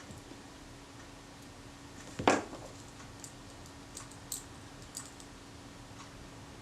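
Small metal tools and camera parts clicking against each other and the workbench while a tiny screw and spring are fitted, with one sharp clack about two seconds in and a few light ticks after it, over a faint steady hum.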